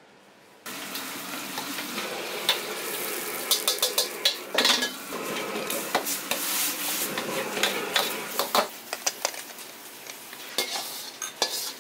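Stir-frying in a wok: food sizzling loudly in hot oil while a metal ladle scrapes and clanks against the pan again and again. The sizzle starts suddenly about a second in and eases off somewhat in the last few seconds.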